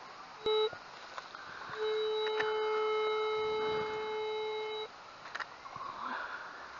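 Metal detector signalling a metal target: a short beep, then one long steady tone of about three seconds as the coil is held over the freshly dug spot.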